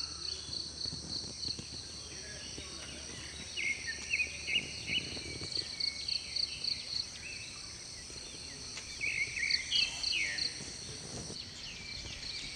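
Steady chorus of insects shrilling in the background, with a bird's chirping calls about four seconds in and again near ten seconds.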